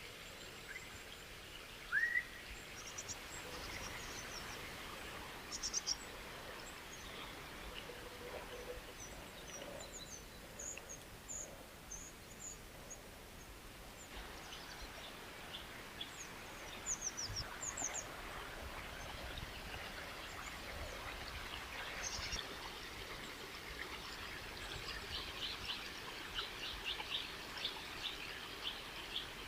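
Steady rush of flowing water with small birds chirping over it: a short rising call about two seconds in, scattered high chirps, and a quick run of chirps near the end.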